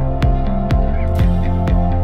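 Background electronic music with a steady beat of about two beats a second over a bass line, with a short whoosh about a second in.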